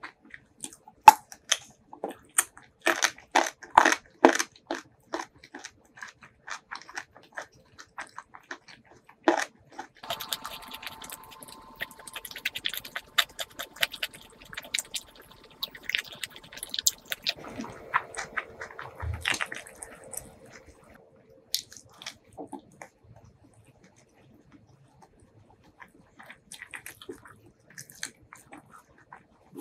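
Close-up eating sounds: a run of crisp crunching bites and chews in the first few seconds, then wetter chewing, quieter for a while, and soft sticky sounds near the end as rice and chicken are eaten by hand.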